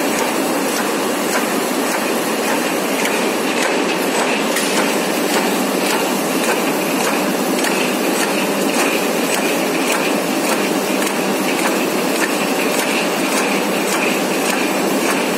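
Cold pilger mill running, rolling a steel tube: a steady, loud mechanical clatter with dense fine ticking throughout.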